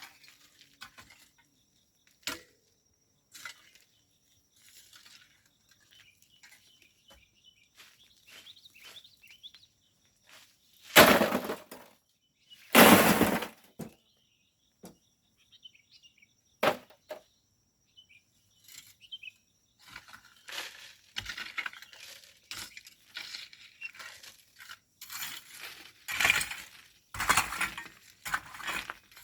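Volcanic sand and gravel being shovelled by hand: scattered scrapes and stones clinking, two loud gritty shovel loads about eleven and thirteen seconds in, then a steady run of scraping strokes near the end.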